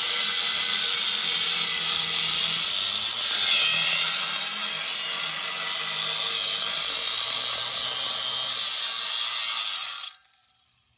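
Angle grinder with a cutoff wheel cutting through metal: a steady, loud grinding whine that stops abruptly near the end.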